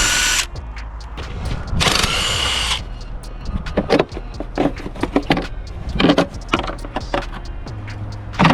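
Cordless power driver spinning out valve-cover bolts on a Honda K24 engine in two short bursts, each with a rising motor whine. Scattered clicks and knocks of loose hardware follow.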